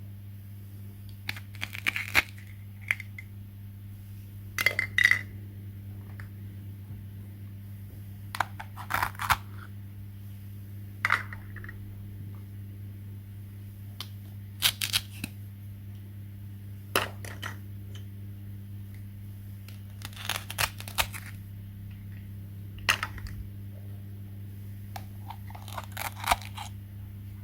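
Small hard objects being handled, making short clusters of light clicks and clinks every two to three seconds over a steady low hum.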